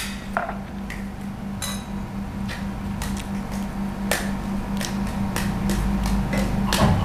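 Spoons clicking irregularly against plates and a steel bowl as people eat, over a steady low hum.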